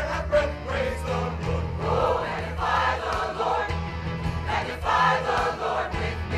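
A large mixed gospel choir singing a praise anthem over a steady instrumental accompaniment with a prominent bass line.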